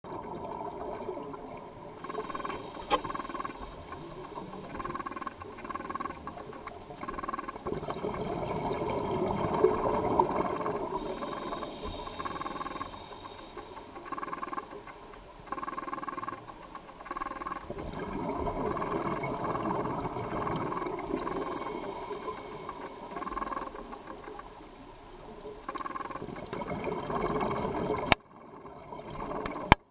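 Underwater sound of courting ocean triggerfish: a dense crackle with a few sharp clicks. Every several seconds a scuba diver's exhaled bubbles hiss over it.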